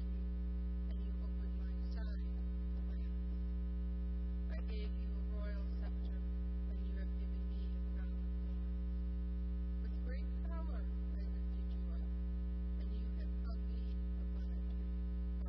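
Steady electrical mains hum in the audio feed, a constant low buzz, with a few faint, indistinct sounds now and then.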